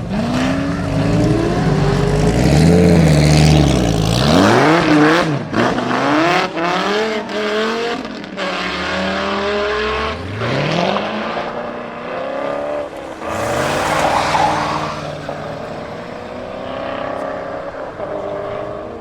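Supercar engines revving and accelerating hard, the pitch climbing and dropping again and again through gear changes, with a run of sharp cracks about five to eight seconds in.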